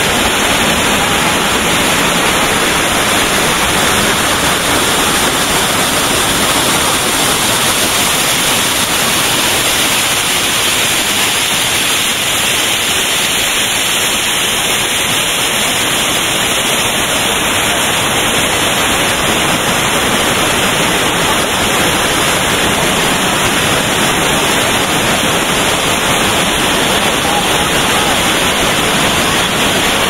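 Waterfall cascading over rock: a loud, steady rush of falling water.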